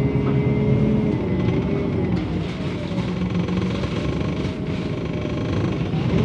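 MAN NL 273 T3 city bus's LPG engine running, its note sinking about two seconds in and then holding lower.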